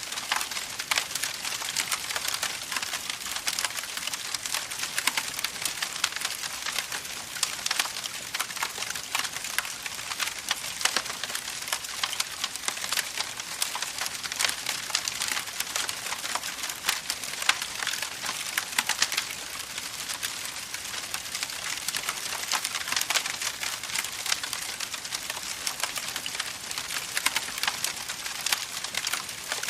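Campfire wood burning with a dense, continuous crackle and frequent sharper pops and snaps.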